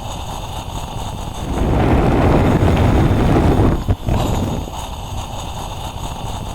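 Hot air balloon gas burner firing: a low rumble swells into a loud, steady blast of flame noise about a second and a half in, which cuts off sharply about four seconds in and drops back to the low rumble.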